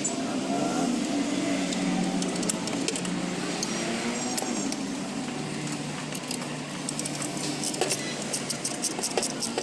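Metal tools and parts clicking and clinking in irregular light taps during clutch work, over a steady low hum.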